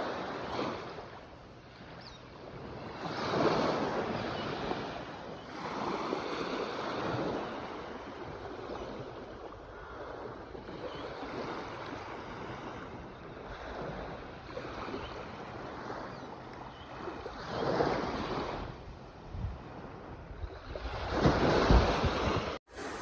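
Ocean waves breaking and washing in, a steady rush that swells louder about four times as waves break, with a brief cut-out in the sound near the end.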